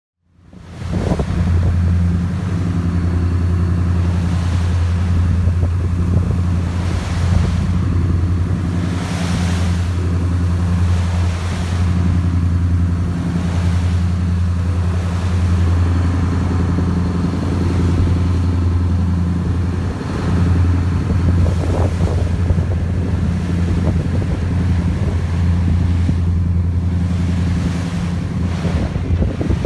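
Steady low drone of a power yacht's engines while under way, with water rushing past the hull and wind on the microphone.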